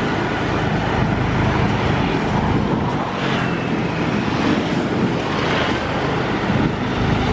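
INKA battery tram (battery electric multiple unit) running past on the track: a steady rolling noise of steel wheels on the rails, with no diesel engine note.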